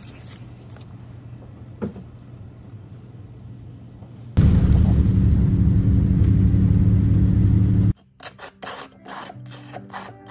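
A machine running with a loud, steady low hum that starts suddenly about four seconds in and stops sharply about three and a half seconds later. Before it, a quiet low hum with a single click.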